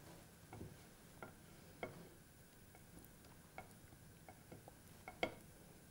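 Faint, irregular small ticks and pops from a buckwheat pancake (khule) cooking in a hot oiled pan, the batter bubbling before it is ready to turn.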